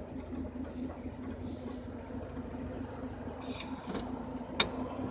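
Pickup truck engine idling steadily, heard from inside the cab. A single sharp click comes near the end, and a brief hiss a little before it.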